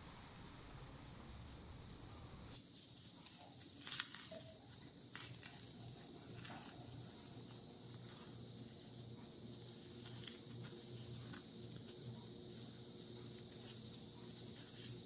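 Faint crinkling and tearing handling sounds, with a few sharper crackles about three to seven seconds in and again about ten seconds in.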